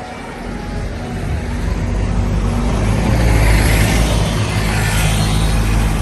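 Street traffic with a motor vehicle's engine running close by: a low, steady engine hum and a rushing noise that grow louder through the first half and are loudest about three to five seconds in.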